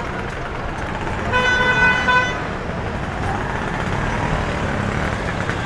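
A vehicle horn sounds once, a steady single-pitched toot about a second long, over steady street traffic noise.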